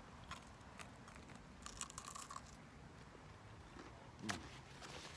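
Faint eating sounds from crispy fried chicken: light clicks and a spell of crunchy, scratchy chewing and rustling about two seconds in, then a short louder knock with a brief hum about four seconds in.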